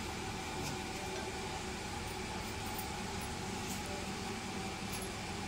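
A steady mechanical hum with an even hiss that does not change, without speech.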